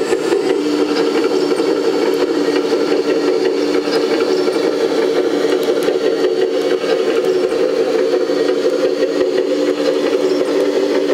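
Hydraulic pump of a 1/14-scale RC hydraulic excavator (Lesu ET26L) running steadily, a constant mechanical whine as the machine slews and moves, with faint clicks over it.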